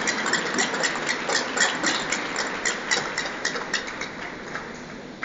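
Hands clapping at a quick, even beat over crowd noise, fading out about four seconds in.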